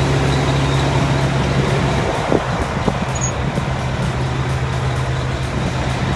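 Semi-truck engine idling, a steady low hum heard inside the cab, with a couple of light knocks about two to three seconds in.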